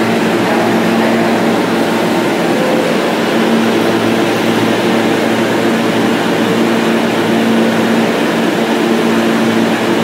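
New York City subway R train pulling into the station and slowing to a stop, with a loud, steady electrical hum over the rumble of the cars.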